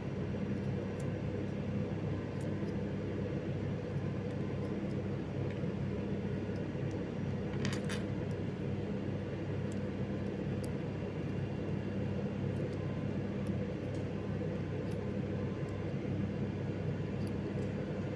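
Scattered light clicks and ticks from the thin copper wires of a Cat6 cable being handled as the untwisted pairs are straightened by hand, with a small cluster of clicks about eight seconds in. A steady low hum runs underneath.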